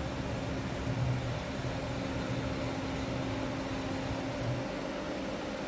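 Smart SL-200 CNC lathe running quietly with a steady hum while its turret slide is jogged under manual input. Part of the sound, a low whir and a high hiss, stops about four and a half seconds in, as the slide comes to rest.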